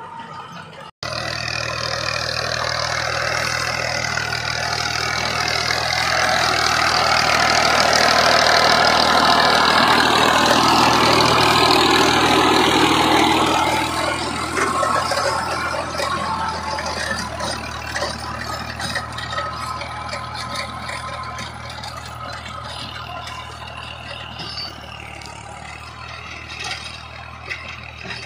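Tractor engine running steadily under load while working a rotavator, under a loud rushing, churning noise that eases about halfway through. The sound cuts out for an instant about a second in.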